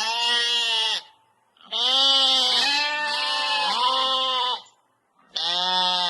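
Bleating: a run of loud, wavering calls, each lasting about a second, coming in groups with brief silent gaps between them.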